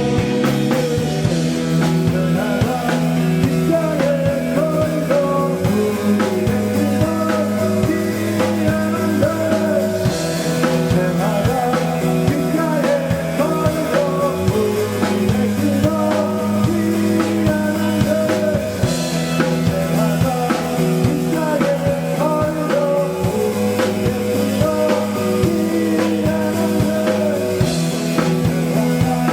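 Rock band playing live, drums and guitars over a bass line that moves to a new note every four or five seconds, with a cymbal crash about every nine seconds.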